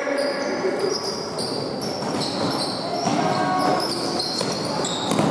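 Basketball being dribbled on a hall court, with many short, high squeaks of players' shoes on the floor.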